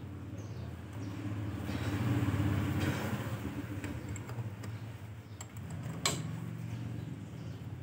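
A motorbike engine runs nearby with a steady low hum that swells about two seconds in and then eases off. There is one sharp click about six seconds in as parts are handled.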